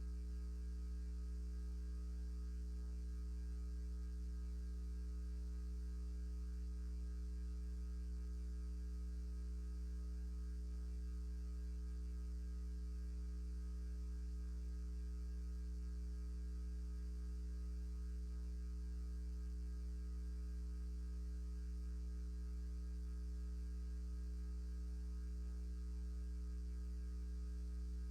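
Steady electrical mains hum in the audio feed: a constant low buzz with a ladder of higher tones above it, unchanging throughout.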